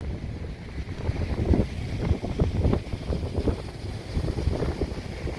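Wind buffeting the microphone in irregular low rumbling gusts, over the wash of small waves breaking on a sandy beach.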